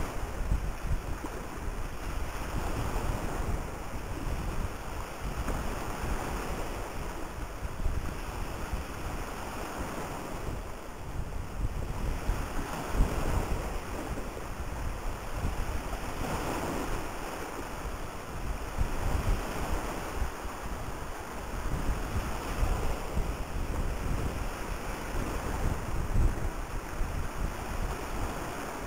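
Wind rumbling on the microphone in gusts that swell and fade every few seconds, over a steady rushing noise of wind and choppy water.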